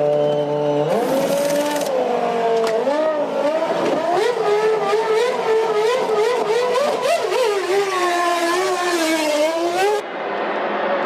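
Formula One V10 engine at racing speed. It holds a steady note for about a second, then its pitch rises and falls repeatedly with throttle and gear changes. The sound changes abruptly near the end.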